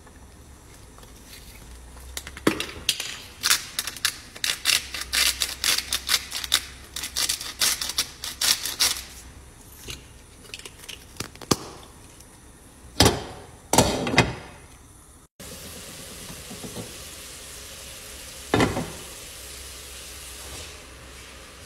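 A plastic sea salt grinder twisted over the pan, giving a fast run of sharp ratcheting clicks for about six seconds, followed by a few louder knocks. After that a steady hiss of the pan bubbling, broken by one knock.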